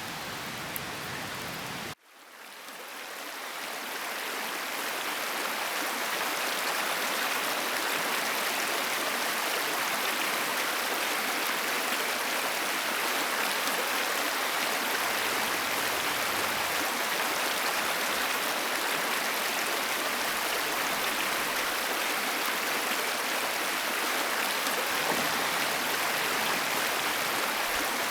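Steady rushing of running water, a stream. About two seconds in the sound cuts out suddenly and the water fades back in over a couple of seconds. Before the cut there is a similar steady hiss with a little more low rumble.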